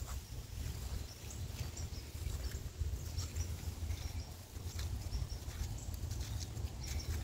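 Footsteps crunching through dry fallen leaves, with irregular crackles scattered through, over a steady low rumble on the microphone.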